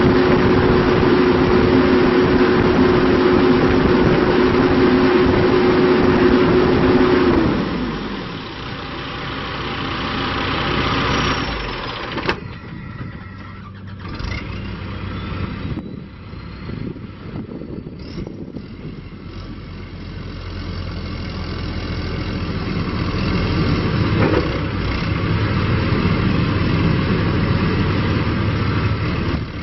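John Deere 410J backhoe loader's diesel engine running at high revs, then dropping to a lower speed about seven seconds in. It stays quieter with a few knocks for a while, then gradually picks up again in the second half.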